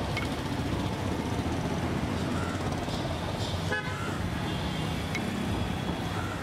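Street traffic with a few short vehicle horn toots over a steady low rumble.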